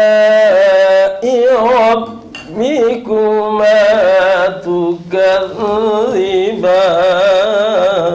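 A man's voice chanting a melodic religious recitation in long, ornamented held notes with vibrato, breaking briefly between phrases.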